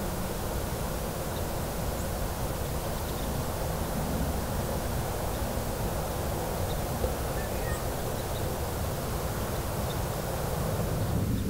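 Steady outdoor wind noise, rumbling low on the microphone, with a few faint high chirps.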